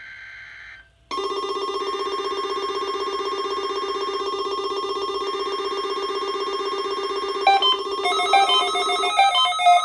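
NOAA Weather Radio alert signal on a weekly test, heard through a weather-radio receiver. After about a second of faint static, a steady buzzy alarm tone sounds and holds until near the end. From about three-quarters of the way in, the receivers' own alert beeps start up alongside it as the tone sets them off.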